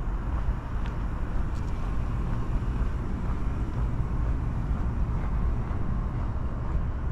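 Outdoor ambience: a steady low rumble under an even hiss, with a few faint ticks about a second in and near the end.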